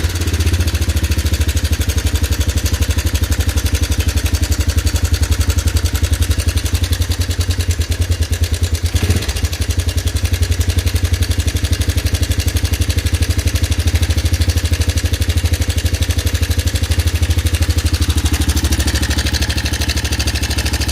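Honda ATC 250SX's single-cylinder four-stroke engine idling steadily, with a noisy top end: a hammering that the mechanic puts down to the valves or the cam chain.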